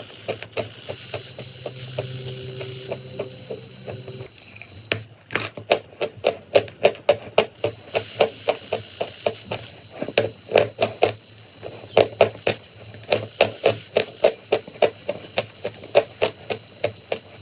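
Chalk and clay being crunched: a run of crisp, loud crunches about three a second, with a low steady hum under the first few seconds.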